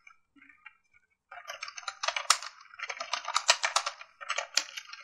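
Typing on a computer keyboard: a few light key clicks, then a quick, dense run of keystrokes from about a second and a half in.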